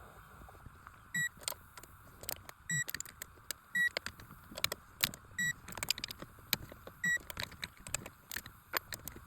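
Ratchet clicks from a torque wrench tightening intake plate bolts, with five short electronic beeps spaced a second or two apart, each marking a bolt reaching the set 18 foot-pounds.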